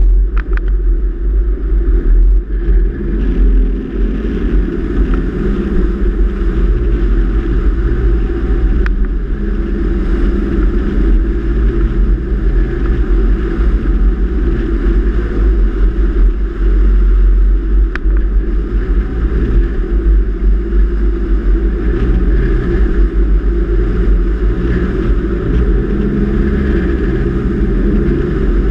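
Four-wheel-drive vehicle driving along a sandy beach, heard from a camera mounted outside it: a loud, steady rumble of engine and tyres with wind buffeting the microphone.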